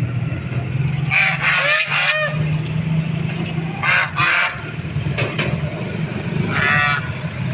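Ducks quacking in several short bursts: a cluster about a second in, another around four seconds, and one near the end. A steady low hum runs underneath.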